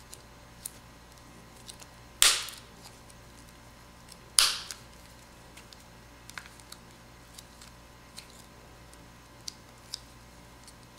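Tabs of a Samsung Galaxy S7 Active's midframe snapping into the phone's housing: two loud snaps about two seconds apart, with small clicks and taps from handling the phone around them.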